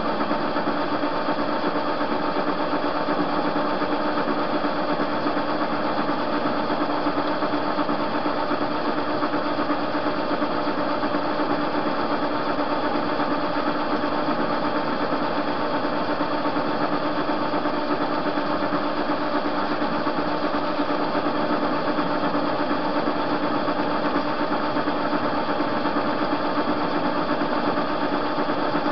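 TV-16 metal lathe running steadily as it turns a metal bar, a constant hum with a steady whine.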